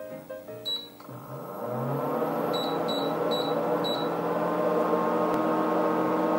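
Background music ends about a second in as an electric kitchen appliance starts up and runs with a steady motor hum and whir. Its keypad gives one short beep just before the hum starts and four more quick beeps a couple of seconds later.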